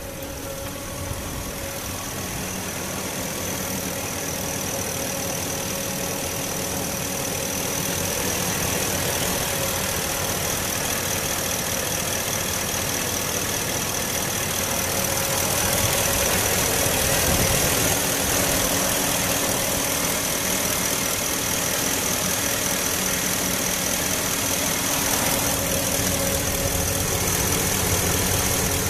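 Ford F250 Super Duty pickup engine idling steadily, with a steady high-pitched whine over the running. It grows gradually louder as the microphone moves in close over the engine bay.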